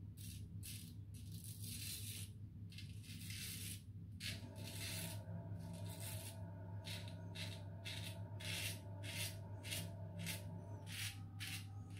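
Razorine Flatboy safety razor with a Kai blade scraping through lathered stubble on the neck in short, faint strokes, slower at first and then about two or three a second, over a steady low hum.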